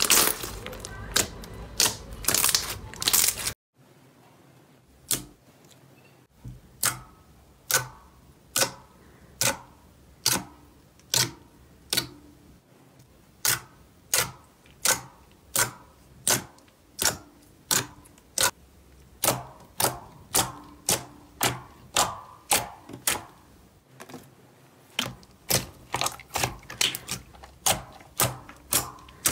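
Slime being kneaded and poked by hand: a dense crackling from squished white slime, cut off a few seconds in, then a rainbow slime in a glass dish gives a steady run of sharp clicks, a bit more than one a second, as fingers press into it and pop trapped air.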